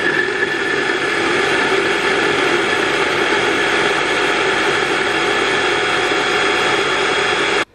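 Electric hand blender motor on its mini chopper bowl running steadily at speed, pureeing canned white beans and eggs into a thick batter. It cuts off abruptly right at the end.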